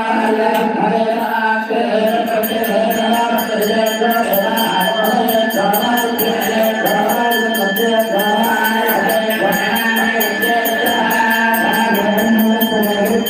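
Voices chanting a devotional mantra in song over a steady low tone. About two seconds in, a fast, even metallic ringing joins, several strokes a second, as during an aarti.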